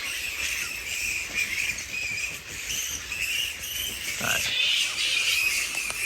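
Continuous high-pitched chattering and squabbling from a roosting flying-fox (fruit bat) colony, with a short louder call about four seconds in.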